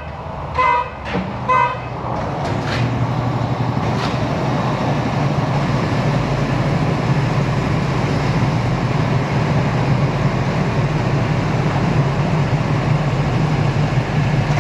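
Three short, evenly spaced beeps at the start, then a vehicle engine running steadily with a low, even hum.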